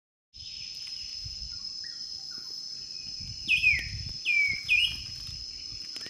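A steady, high-pitched insect trill. About halfway through, a bird gives three loud calls that slur downward, after a couple of softer chirps.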